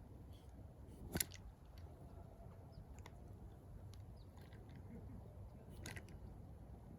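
Faint background hum with a few scattered sharp clicks, the loudest about a second in and another near six seconds.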